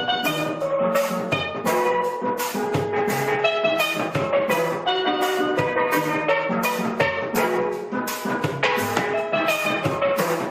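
Caribbean steelpan music over a drum beat: a bright, busy melody of short ringing notes.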